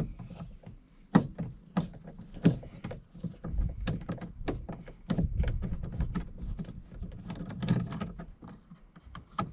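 A screwdriver working loose a screw in a car's rear door card. It makes a string of irregular clicks and knocks from the tool and the trim, with a low rumble in the middle.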